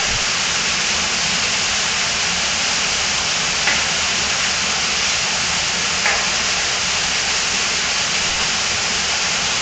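Steady rushing of an underground waterfall echoing in a cave, with two faint knocks partway through.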